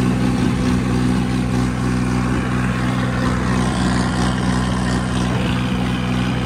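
Sonalika tractor's diesel engine running at a steady speed while the tractor is driven along the road, its pitch and level holding even throughout.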